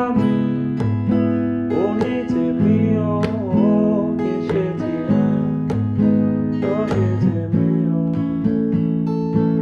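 Background music: strummed acoustic guitar chords with a melody line over them that bends in pitch.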